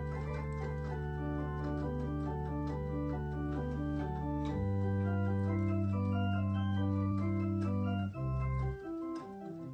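Wyvern Sonata MK2 electronic organ being played: sustained chords over long held bass notes, with a moving melody line on top. The bass and chord change about halfway through and again shortly before the end, where the sound briefly thins out.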